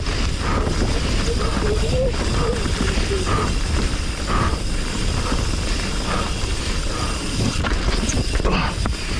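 Wind buffeting a GoPro microphone and knobbly tyres rumbling over a loose dirt trail as a Commencal Meta HT hardtail mountain bike descends, with short knocks and rattles from the bike over rough ground.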